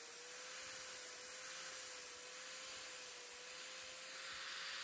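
Angle grinder running a homemade sanding disc of sandpaper on a compact disc, sanding the edge of a wooden board: a steady motor whine with the hiss of abrasive on wood.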